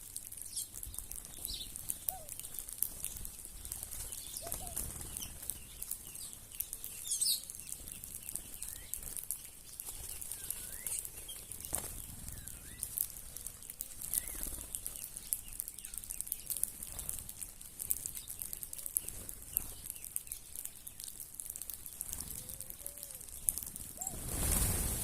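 Birds gathered at a yard feeding spot calling with scattered short chirps and pitch-gliding notes, with some wing flutters, over a steady high hiss. A louder low rustle comes near the end.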